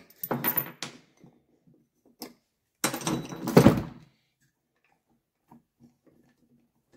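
Metal parts of a scooter's variator clinking and knocking as it is taken apart by hand. A quick run of clinks comes in the first second, then a single click, then a louder clatter lasting about a second, then a few faint taps.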